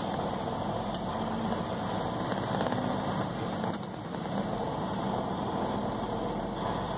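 Semi-truck diesel engine running at low speed as the truck rolls slowly across a lot, heard from inside the cab, with a brief dip in level about four seconds in.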